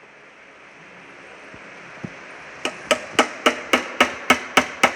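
Rapid, evenly spaced hammer blows on a steel gearbox part during teardown, nearly four strikes a second, each ringing metallically. They begin a little past halfway through, after a low hiss and a couple of faint knocks.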